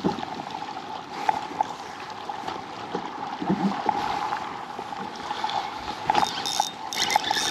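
Water lapping and gurgling against a fishing kayak's hull as it moves, over a steady hum. A few light clicks and high rustles come near the end.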